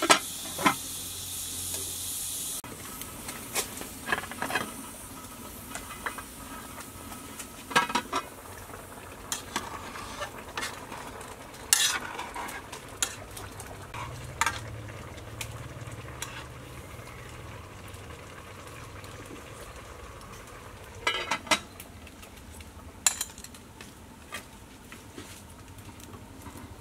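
Metal cooking pots and lids being handled, with scattered clinks and knocks, over a faint steady sizzle. A loud high hiss at the start cuts off after about two and a half seconds.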